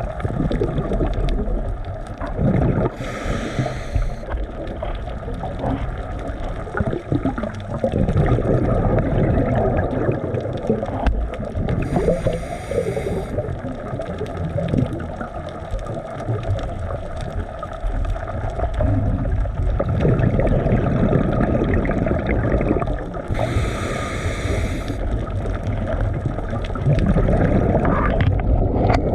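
A boat motor runs steadily over rushing, gurgling water. Three brief hissing bursts come about three seconds in, about twelve seconds in and about twenty-four seconds in.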